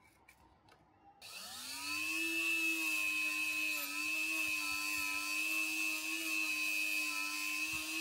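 A few light clicks, then an rdm rotary tool fitted with a small wire brush switches on about a second in, spins up and runs at a steady high whine. The pitch dips slightly now and then as the brush is worked against the freshly cast iron Benchy to clean off the mould grit.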